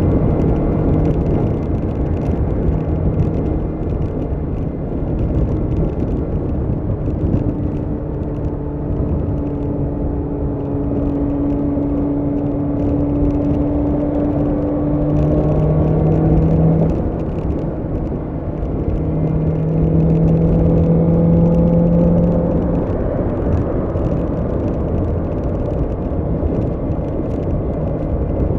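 BMW S1000R's inline-four engine running under way, mixed with heavy wind and road rush. Its pitch climbs slowly for several seconds, drops about two-thirds of the way through, then climbs again.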